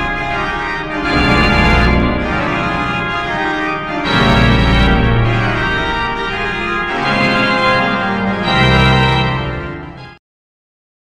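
Organ music playing sustained chords that change every second or so, with deep bass swells; it cuts off suddenly near the end.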